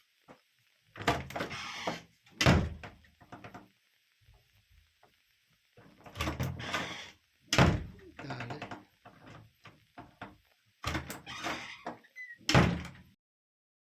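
A wooden main door and its newly fitted lockset being worked: a series of knocks and thuds with rattling latch and handle clatter between them, the sharpest about one, two and a half, seven and a half and twelve and a half seconds in. The sound cuts off suddenly near the end.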